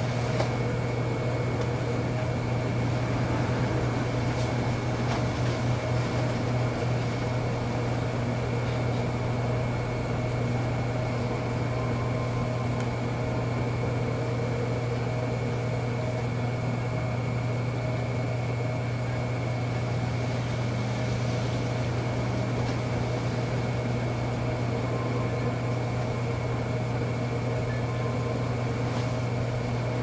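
Electric potter's wheel running at a steady speed: a constant low motor hum with a few faint, steady higher tones over it.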